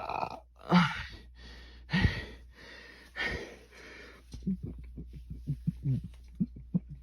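The tail of a deliberate burp right at the start, then a few breaths in and out, and from about halfway a run of quick, short gulps, several a second, as he swallows air to work up the next burp.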